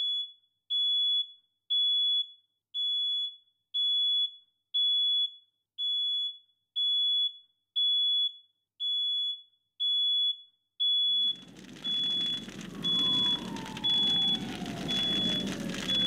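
Smoke alarm beeping, a high-pitched tone repeating about once a second. About eleven seconds in, a low background noise joins it, and near the end a siren's wail slowly falls in pitch.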